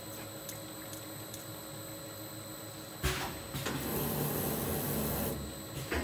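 Automatic multi-nozzle filling machine for liquid soap and detergent running: a steady machine hum with a few light ticks. About three seconds in, a sudden louder rushing, hissing noise starts and lasts about two seconds as the machine works through its cycle.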